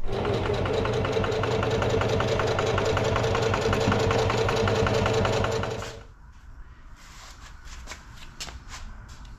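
Electric sewing machine running at speed and stitching fabric, with a fast, even needle rhythm; it stops about six seconds in, leaving a few faint clicks.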